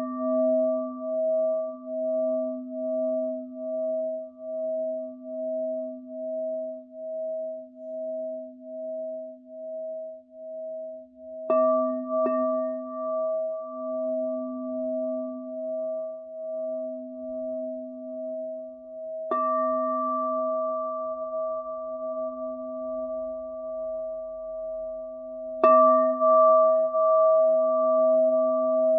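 Large frosted quartz crystal singing bowl struck with a padded mallet five times, twice in quick succession about twelve seconds in. Each strike renews a deep, sustained ringing of a few pure tones that pulse slowly in loudness.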